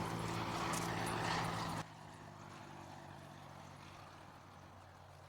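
A steady low engine drone with a rushing noise over it; the rushing cuts off suddenly about two seconds in, leaving the hum to fade slowly.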